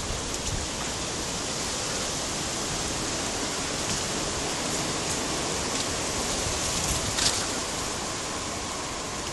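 A steady rushing hiss on a handheld phone's microphone as it is carried along, with a few faint clicks and one brief louder rustle about seven seconds in.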